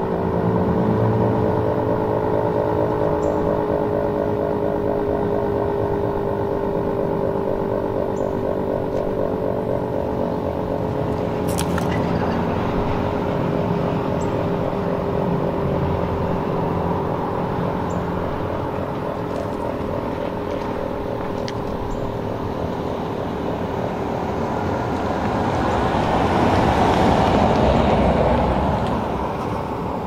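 Federal Signal 3T22 three-tone siren holding a low, steady chord over traffic rumble, fading out about three-quarters of the way through as it winds down. Near the end a passing vehicle swells up and away.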